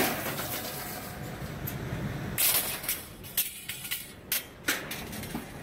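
Scrapyard heavy machinery: a low steady engine rumble, with several sharp metal clanks and bangs in the second half as scrap cars are handled.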